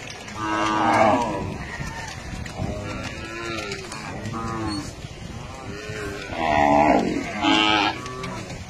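A herd of cattle mooing, one call after another and often overlapping. The loudest calls come about a second in and again near the end.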